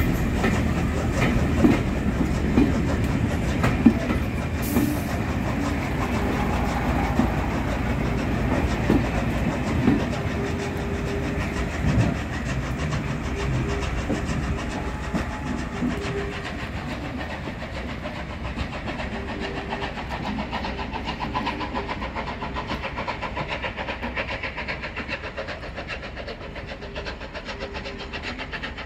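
Heritage diesel multiple unit departing past the platform, its wheels clicking over rail joints and its diesel engines running. The sound fades steadily as the train draws away down the line.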